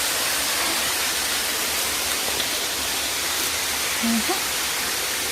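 Steady rushing of a waterfall, an even hiss with no breaks, with a brief voice sound about four seconds in.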